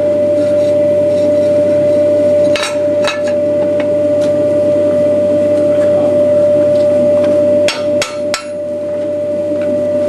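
Hammer blows on a hot steel crankshaft bar being bent in a forging jig: two strikes a few seconds in and three more in quick succession about three-quarters through, over a steady hum.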